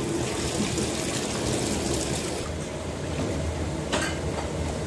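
A ladle stirring and lifting cabbage in a large aluminium pot of napa cabbage soup, the broth splashing and trickling back into the pot, with a sharp knock about four seconds in.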